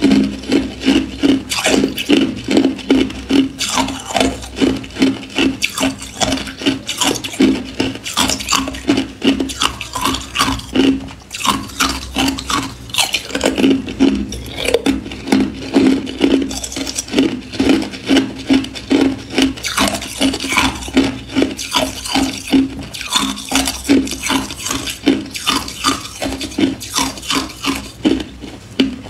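Hard ice cubes crunched between the teeth, close to the microphone: a long run of crisp crunches about two a second.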